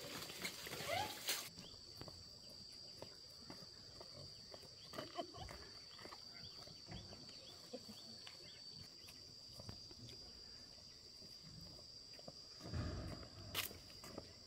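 Piglet in a woven back basket giving faint short squeals and grunts now and then, over a steady high-pitched insect drone; footsteps on a dirt path near the end.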